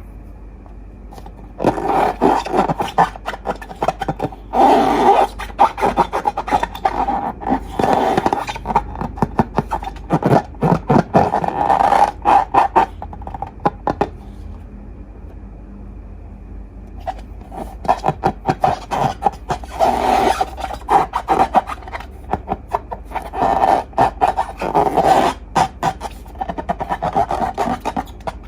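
Slime being squeezed and worked by hand, giving dense sticky crackling and clicking in two long stretches with a quieter pause in between.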